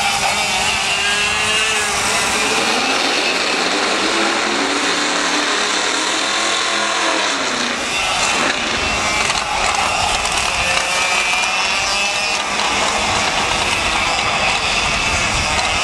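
Several IAME Leopard 100cc two-stroke kart engines racing, their pitch rising and falling again and again as the drivers come off and back on the throttle through the corners.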